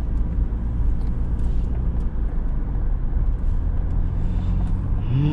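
GMC Sonoma pickup driving, its engine and tyres making a steady low rumble as heard inside the cab.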